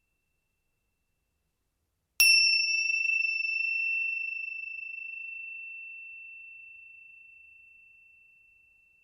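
A small high-pitched bell struck once about two seconds in, ringing one clear tone that slowly fades away over several seconds. It marks the close of the meditation session.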